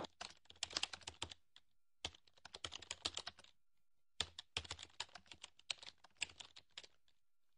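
Typing on a computer keyboard: three runs of quick key clicks with short pauses between them.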